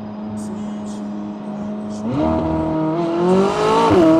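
McLaren 600LT's twin-turbo V8 running at a steady cruise, then from about two seconds in the revs climb under acceleration, with a quick upshift near the end.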